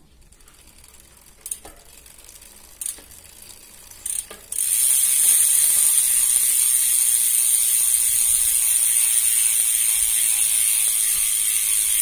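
Bicycle rear freehub ratcheting in a steady, loud buzz as the drivetrain is turned on a stand to test a freshly refitted chain quick link. A few light clicks come first, and the buzz starts about four and a half seconds in.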